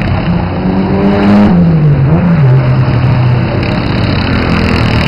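Racing karts' small engines running hard on the track: the loudest engine drops in pitch about two seconds in as the kart slows for a corner, then runs on lower, with other karts' engines underneath.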